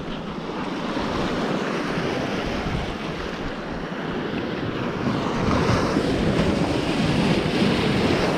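Surf washing onto a beach with strong onshore wind buffeting the microphone; the wash swells louder over the second half.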